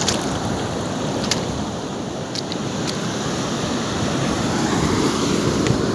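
Surf washing on the beach with wind rushing over the phone's microphone, a steady noise broken by a few faint clicks.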